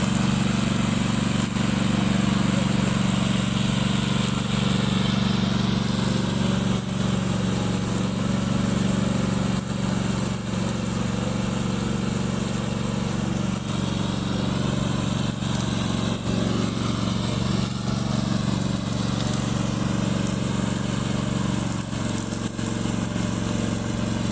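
Gasoline engine of a remote-control tracked brush cutter running steadily at high speed.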